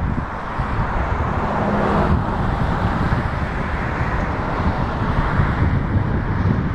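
Outdoor traffic noise with wind buffeting the microphone, and a vehicle passing close by that swells and fades about two seconds in.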